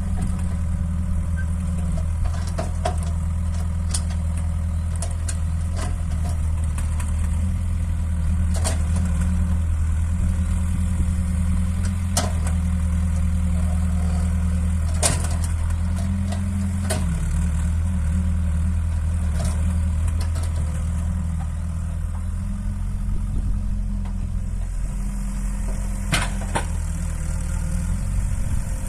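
Excavator's diesel engine running steadily, its pitch shifting now and then, with occasional sharp clanks.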